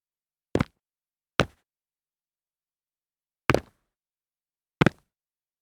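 Foley of jumps landing on concrete: four sharp landing impacts, spaced irregularly with a longer gap in the middle, some landings heard as two quick hits as the feet come down.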